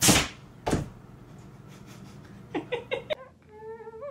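A cat jumping onto a kitchen counter: a loud thump, then a second thump less than a second later, over a steady low hum.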